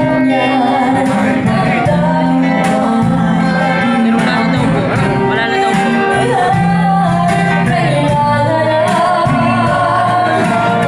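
Live amplified band music: two women singing a melody over guitar and a steady hand-drum beat.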